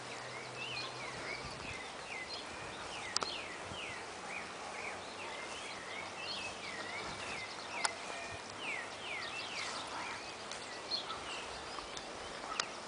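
A chorus of many birds chirping, short sliding calls overlapping one another throughout, with three sharp clicks standing out about three, eight and twelve seconds in.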